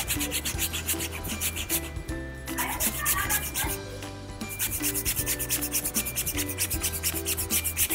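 Dish brush scrubbing a wet fabric couch cushion in rapid back-and-forth strokes, several a second, with two short breaks. The rubbing is the brush lifting crayon marks out of the damp upholstery.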